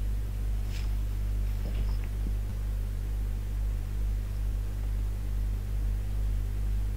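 Steady low electrical hum with faint hiss, with a faint click about a second in.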